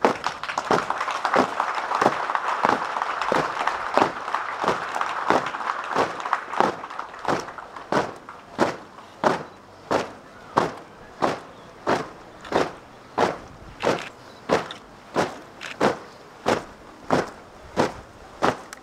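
Marching feet of a ceremonial troop stamping in unison in parade step: a regular beat of sharp footfalls, about three every two seconds, over a background hiss that fades away in the first half.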